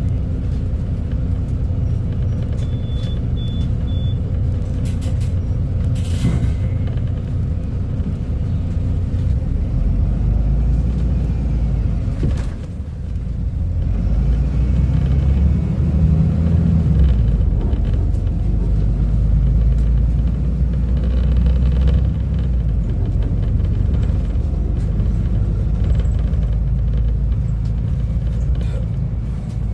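Engine of a Volvo B250RLE bus running with a steady low rumble. About ten seconds in it pulls harder and louder, with a brief dip near twelve seconds, and it eases again after about twenty-two seconds. Three short high beeps sound about three seconds in.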